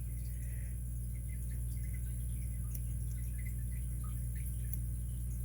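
Faint scattered ticks and light scraping of a short-hook pick and tension wrench working the pin tumblers of a vintage Master Lock No. 7 four-pin brass padlock cylinder as the pins are set one by one, over a steady low hum.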